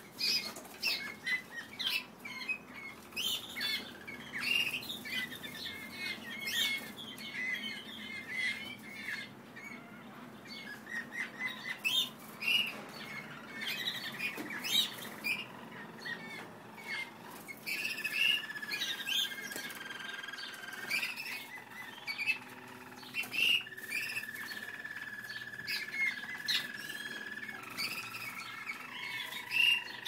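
A flock of German Roller canaries singing. Short chirps and calls fill the first half. From about halfway through come long, held rolling notes that step between a few pitches, with occasional wing flutters as birds shift on the perches.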